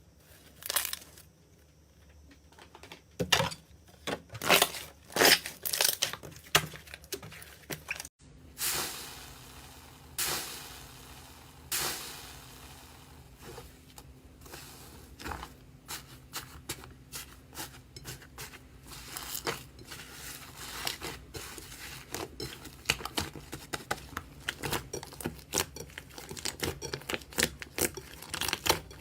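Slime being worked, giving irregular sharp pops and crackles with a tearing quality. After a cut about eight seconds in, the crackling turns denser and quieter.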